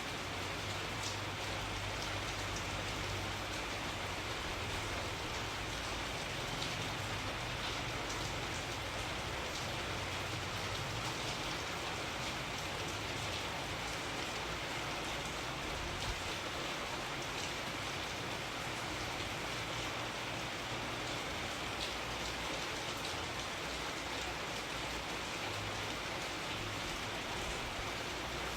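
Steady rain falling, an even hiss with scattered drop ticks and a low rumble underneath.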